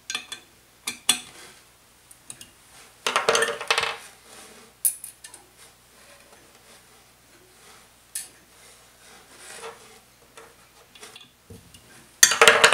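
Bolts, nuts and hand tools clinking and scraping, metal on metal, in scattered short knocks. There is a longer clatter about three seconds in and a louder one just before the end.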